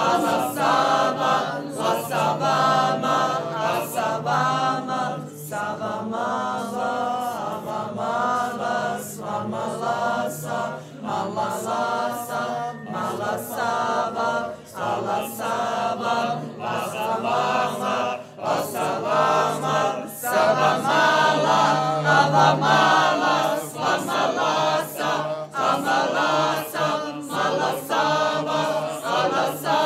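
Choir singing, with a low note held steadily beneath the moving upper voices.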